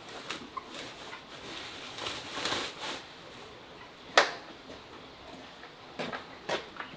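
Rustling of a woven plastic feed sack and scattered knocks from handling a motorbike loaded with chicken crates, the loudest a single sharp knock about four seconds in.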